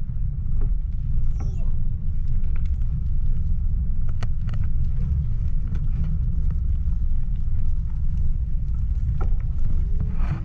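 Wind rumbling on an action camera's microphone while cycling, with tyre noise from the asphalt path and scattered small clicks of the bike.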